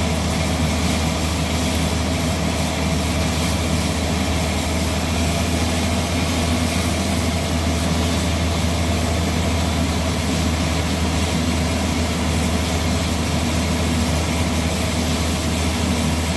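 Concrete mixer truck's diesel engine running steadily with a heavy low hum, loud and unchanging.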